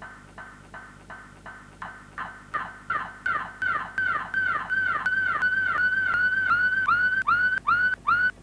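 A woman's scream from an old film soundtrack, cut into a short fragment and looped in a fast stutter, about three repeats a second, each a sharp cry falling in pitch. From about five seconds in the repeats run together into a near-continuous wavering tone, then break apart again into short rising-and-falling cries.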